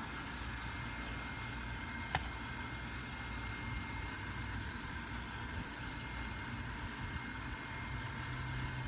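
Steady low hum of a running motor, like an engine idling, with a faint thin high tone over it and one sharp click about two seconds in.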